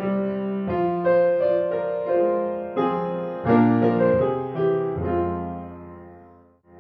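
Piano music: a run of single notes and chords, each dying away, fading out just before the end.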